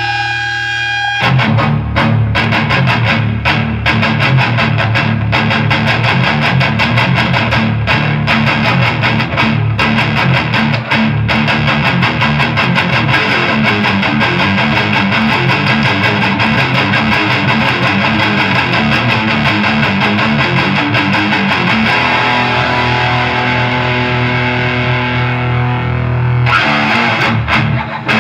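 Distorted electric guitar played through a Snake Oil Fine Instruments Marvelous Engine, a Rat-style distortion pedal: dense picked riffing, then a chord held for a few seconds near the end before the picking starts again.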